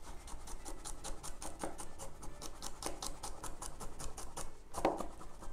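Large kitchen knife rapidly chopping garlic on a wooden cutting board: quick, regular knocks of the blade on the board, about five a second, with one heavier knock near the end.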